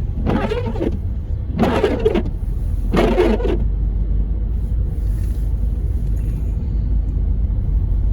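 Steady low road rumble of a car driving on a snowy road, heard from inside the cabin, with three short louder sounds in the first half.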